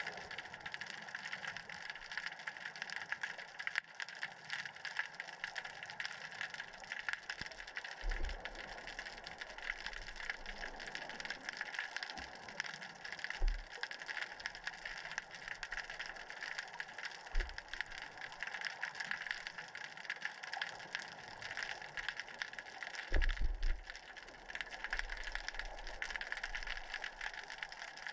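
Underwater ambient noise heard through a submerged camera: a steady crackling hiss, with a few short low thumps, the longest a little before the end.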